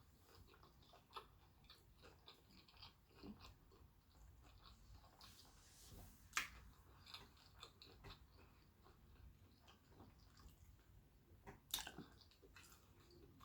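Faint chewing of soft baked macaroni and cheese: small, scattered wet mouth clicks, with two sharper clicks about six and twelve seconds in.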